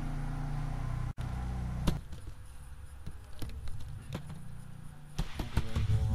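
Computer keyboard keys clicking as text is typed, a few separate presses and then a quick run near the end, over a steady low rumble.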